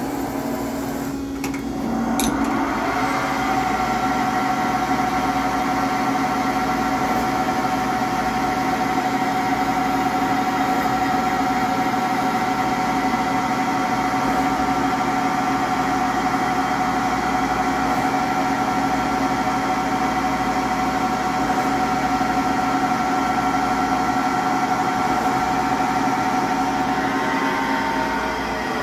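Toolmex TUR630 CNC lathe running a program: the spindle drive gives a steady multi-tone whine. About two seconds in there is a short click, and the whine climbs to a new steady pitch as the spindle changes speed. The pitch falls away near the end as the spindle slows.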